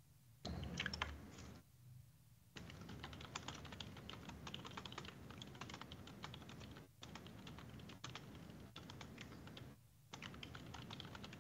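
Faint typing on a computer keyboard: runs of quick key clicks broken by a few short pauses.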